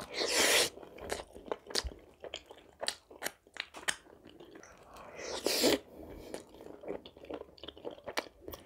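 A person eating close to the microphone: two loud crunching bites, one at the start and one about five seconds in, with chewing and mouth clicks between them.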